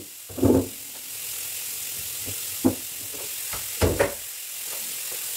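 Steady hiss with three short dull knocks and bumps from someone moving about and handling things on a tiled bathroom floor.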